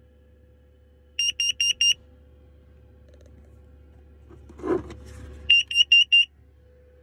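FireAngel carbon monoxide alarm sounding: two groups of four short, high-pitched beeps, the second about four seconds after the first. This is the alarm triggered by carbon monoxide from the van's diesel heater, which is drawing its air from under the van. Between the groups there is a brief knock as a hand touches the alarm.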